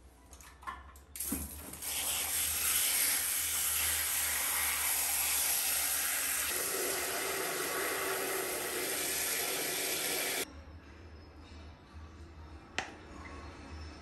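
A stream of water pours into a plastic folding washing-machine tub full of clothes. It starts abruptly about a second in, sounds fuller and lower about halfway through as the tub fills, and cuts off sharply after about ten seconds. A single click follows near the end.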